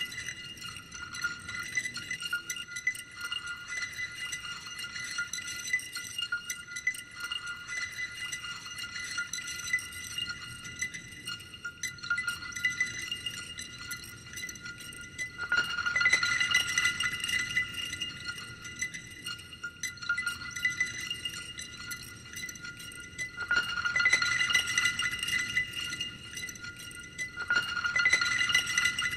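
Art-film soundtrack of high, glassy chiming tones, a rapid shimmering flutter held on a few fixed pitches. It swells louder about halfway through and twice more near the end.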